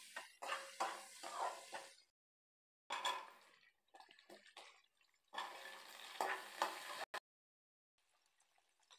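A steel spoon clinking and scraping in a frying pan while shallots, curry leaves and dried red chillies sizzle in oil and drumstick (moringa) pieces are stirred in. The sound comes in three short bursts, each broken off by dead silence where the clip is cut, and only a faint sizzle is left near the end.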